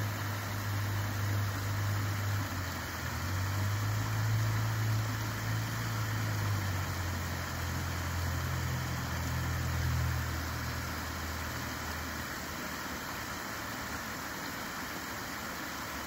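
Spring creek water spilling over a stick-and-mud dam with a steady rushing hiss. Under it runs a louder low engine hum that shifts in pitch and fades out about eleven seconds in.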